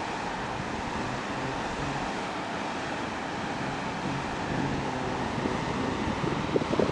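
Wind rushing over the camera microphone high up on a parasail, a steady rush that turns gustier and buffets the microphone near the end.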